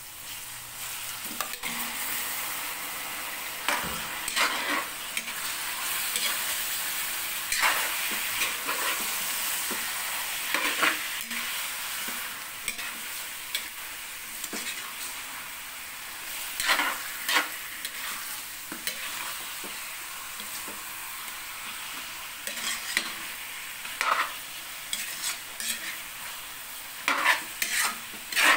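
Raw chicken pieces sizzling as they fry in a wok of sautéed onions, with a metal spatula scraping and clanking against the pan every few seconds as they are stirred.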